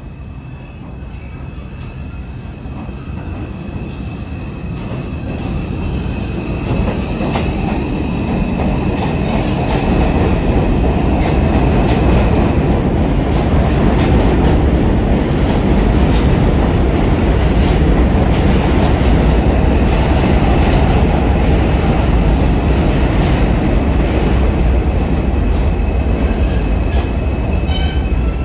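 R142 subway train running into an elevated station on the near track, its wheels rumbling and clacking over the rail joints, growing louder over the first ten seconds and then holding steady. A thin high whine sounds over the first dozen seconds.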